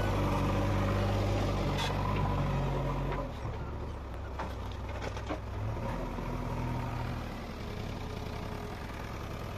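JCB 3DX backhoe loader's diesel engine running hard for about three seconds, then dropping back to a lower, steadier run. A few sharp knocks come around the middle.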